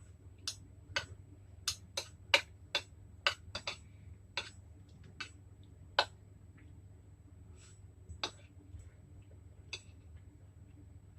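Eating sounds: about a dozen sharp, irregular clicks and taps from a meal of noodles, packed in the first six seconds and sparser after.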